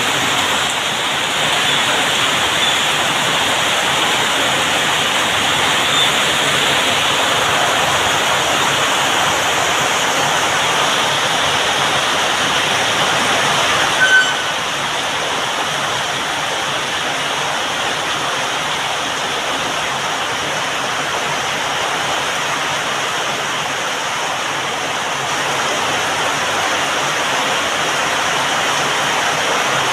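Heavy rain pouring steadily, a dense even hiss. A short sharp click about halfway through.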